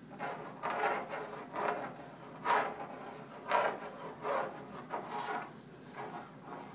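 Tip of a squeeze bottle of paint rubbing across a stretched canvas in a series of short, irregularly spaced strokes, the loudest about two and a half and three and a half seconds in.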